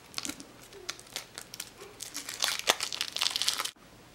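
Thin foil wrapper being crinkled and peeled off a chocolate surprise egg: a run of crackling rustles that gets busier after about two seconds and stops abruptly near the end.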